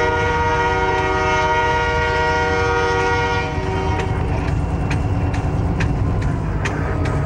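Diesel locomotive air horn sounding one long blast, heard from inside the cab, ending about three and a half seconds in. Under it and after it run the locomotive's steady rumble and the sharp clacks of the wheels over the rail joints.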